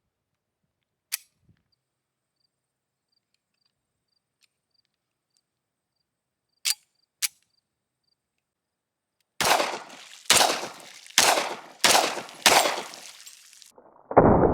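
Walther P38 9mm pistol test-fired: a few sharp metallic clicks, then five shots in fairly quick succession, each followed by an echoing tail.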